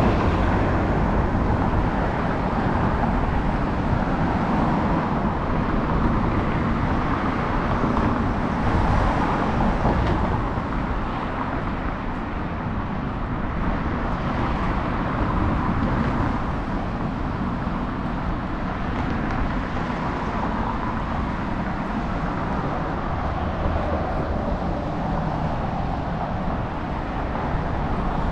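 Steady road traffic noise: cars passing on a busy city street.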